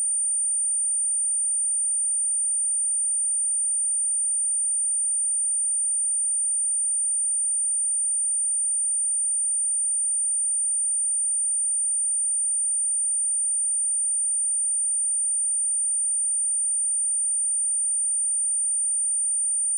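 A steady, unbroken pure sine tone at 9035 Hz, a high-pitched whine, played as a speaker test tone to shake water and dust out of a speaker.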